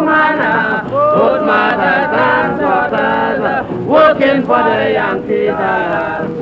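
A calypso song with several male voices singing together.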